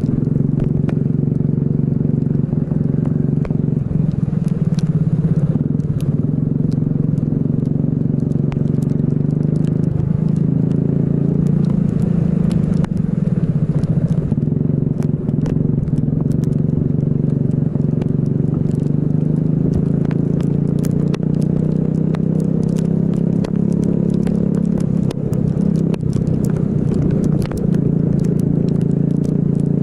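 Racing kart engine running hard, its pitch dipping and rising again several times as the throttle is eased and reopened. Frequent sharp clicks and crackles sound over it.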